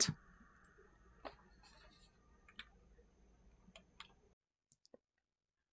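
A few faint, separate computer mouse clicks over a low background hiss, which cuts out about four seconds in.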